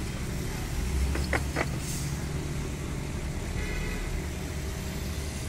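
Heavy diesel engine running with a steady low rumble while a raised tipper trailer dumps its load of sand.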